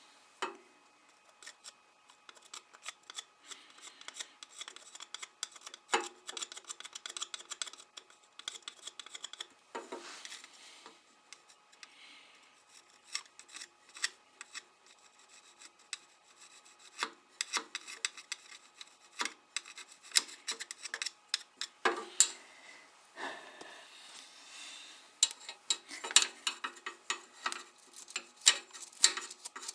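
Hand scraping and brushing at the engine, an irregular run of short scratchy strokes with a few longer rasping passes, as old RTV silicone sealant is cleaned off a Suzuki GS850 engine's mating surface.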